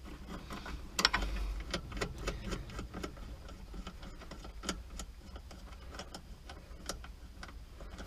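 Irregular small metallic clicks and taps from pliers working at a golf cart's accelerator pedal linkage while the broken throttle cable is freed, the loudest about a second in.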